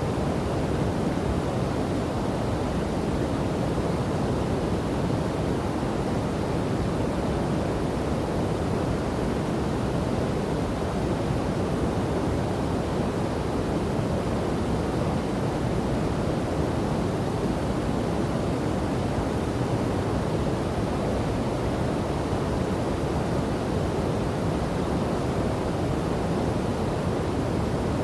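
Rushing water, a steady, unbroken rush that is deep rather than hissy.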